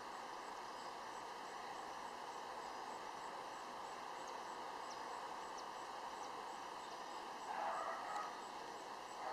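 Steady outdoor background noise with faint, short high chirps scattered through it; a louder brief sound comes about three-quarters of the way through.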